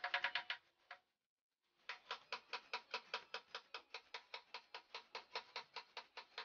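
Claw hammer tapping a nail into a wooden workbench frame in rapid, light, even strokes, about seven a second. The tapping stops for under a second about a second in, then starts again.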